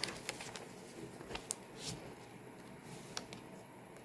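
Faint handling noises: light rustling with a few soft, scattered clicks as the diamond painting canvas is held up and moved.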